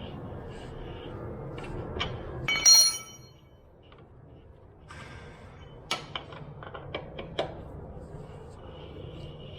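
Metal tools and parts clinking while a motorcycle's front through-axle is worked out. There is one loud ringing metallic clink about two and a half seconds in, then a quick run of light metallic clicks and taps later on.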